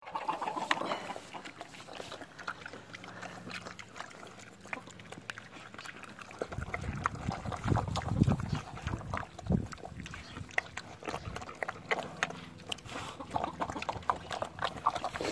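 Mini pigs and piglets eating watermelon: wet smacking and chewing, a rapid stream of juicy clicks and slurps, louder and deeper for a few seconds about halfway through.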